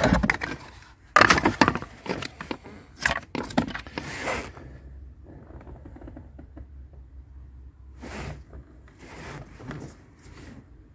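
Handling noise from a car's wiring harness and plastic connectors being moved about: a string of sharp clicks, scrapes and rustles, loudest in the first few seconds, then quieter, with a few more rustles near the end.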